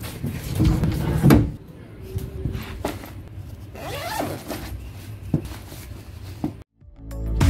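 Handling noises as a wardrobe door is worked and things are pulled out, then a sports bag's zipper is pulled open about four seconds in. Near the end the sound cuts out briefly and music fades in.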